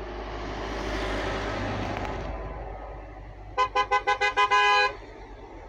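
A Christmas-lit lorry passes with a swelling then fading rush of engine and tyre noise. Then, a little past halfway, its horn sounds a run of about six quick toots ending in a short held blast.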